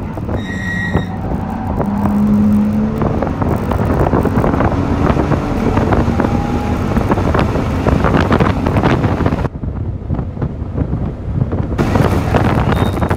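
2018 BMW M2's turbocharged inline-six running hard through the gears inside the cabin, braking for a corner and then accelerating, with wind and road noise over it. A short electronic beep sounds about a second in.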